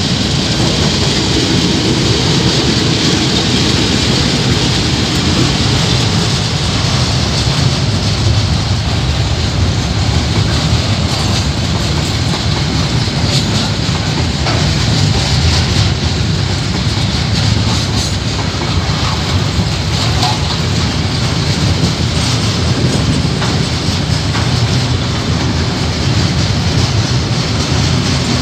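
KiwiRail diesel-hauled freight train passing close by: the locomotive's engine rumble at the start gives way to the steady rumble and rattle of container and box wagons rolling past, with scattered wheel clicks.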